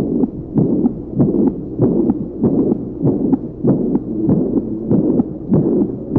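Heart auscultation recording of mitral insufficiency (mitral regurgitation): a regular heartbeat whose sounds are joined by a continuous blowing murmur, the turbulent backflow of blood through a mitral valve that does not close completely.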